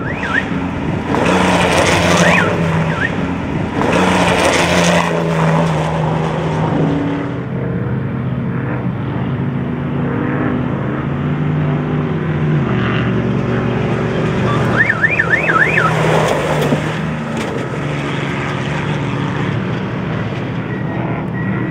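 Class 2000 off-road race truck's engine running hard, its pitch stepping up and down with throttle and gear changes. Two bursts of rushing noise come about one and four seconds in, and a short wavering squeak about fifteen seconds in.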